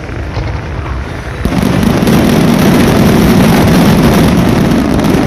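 A firework catching about a second and a half in and then spraying with a loud, steady rushing hiss.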